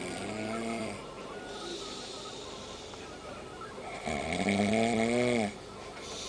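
A sleeping man snoring: a short drawn-in snore at the start, a breathy out-breath, then a longer and louder snore from about four seconds in, each snore rising and falling in pitch.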